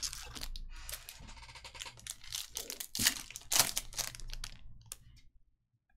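A Topps Merlin Chrome trading-card pack's wrapper being torn open and crinkled by hand. There are two sharp, loud rips about three seconds in, and the crinkling stops about five seconds in.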